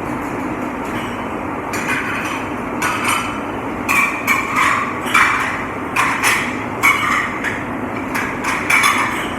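Dishes and cutlery clattering, a dozen or so sharp clinks and knocks starting about two seconds in, over a steady machine hum.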